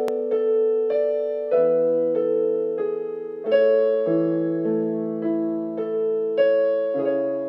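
Piano accompaniment playing a melody over chords in 3/4 time, in A major.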